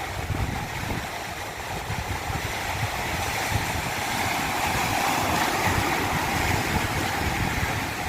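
Stream water rushing down a cascade, a steady rush with a deep rumble underneath that grows a little louder partway through.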